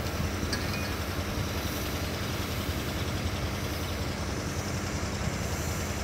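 Diesel-hydraulic engine of a KAI BB303 locomotive running steadily at low power as the locomotive rolls slowly along the track.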